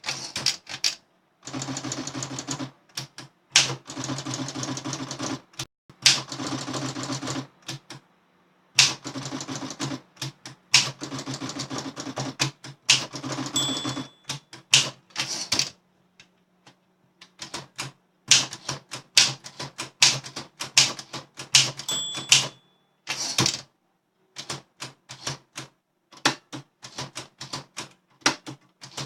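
Olympia SM7 manual portable typewriter being typed on: fast runs of key strikes, then slower, more scattered keystrokes. About halfway through, and again later, a short ding rings over the keys, typical of the margin bell near the end of a line.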